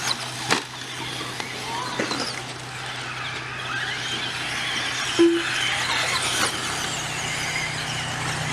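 Several 2WD brushed-motor RC short-course trucks, stock Traxxas Slashes among them, whining around the track, their motor pitches rising and falling as they accelerate and brake, with a few sharp clacks of the trucks hitting the ground. A brief low tone sounds about five seconds in over a steady low hum.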